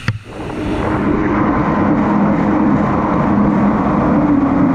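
Krash 50 Cal stand-up jet ski's two-stroke engine running at a steady cruising pace, with water and wind rushing over the camera. After a brief drop right at the start, it climbs over the first second, then holds a steady note.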